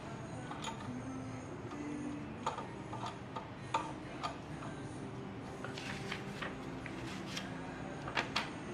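Irregular light clicks and ticks from the mechanical combination dial of a Chubb Cobra safe being turned by hand, more frequent in the second half.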